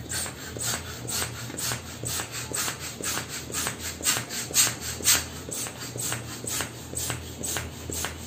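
Hand balloon pump being worked in quick, even strokes, each a short swish of air, about two a second, as a latex balloon fills.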